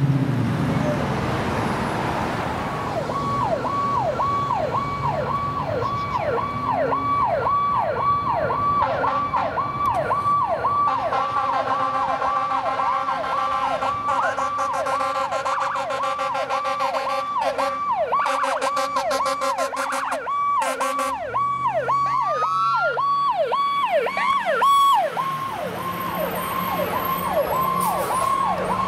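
Fire truck electronic siren on a fast yelp, sweeping quickly down and back up about three times a second. It takes over from engine and traffic noise a few seconds in. Through the middle a second siren's tones overlap it, including one rising wail.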